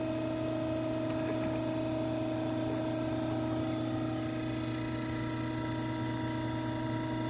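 Steady hum of an electric oil-transfer pump, with waste vegetable oil pouring from a hose into a truck's fuel tank filler.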